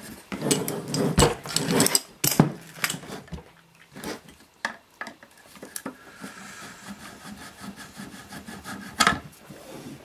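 Handling noise from a metal avionics panel chassis being turned and shifted by hand: rubbing, scraping and a run of small knocks in the first few seconds, then quieter scattered clicks, and a sharp click about nine seconds in.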